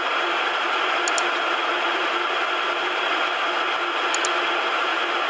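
Steady cabin noise of a jet airliner on the ground: an even hiss of air conditioning and idling engines, with a faint steady whine.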